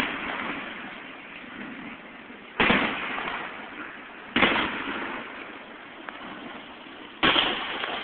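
Fireworks shells bursting: three sharp booms a couple of seconds apart, each trailing off in a rumbling echo.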